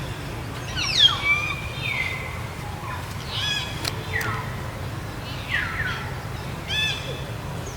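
A series of short, high-pitched animal calls, several sliding down in pitch, the loudest about a second in, over a steady low hum.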